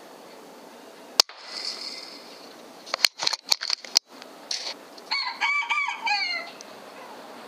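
A rooster crows once, about five seconds in: a single call of about a second and a half that falls away at the end. Before it there is a single sharp crack about a second in, then a quick run of clicks and knocks around three seconds in.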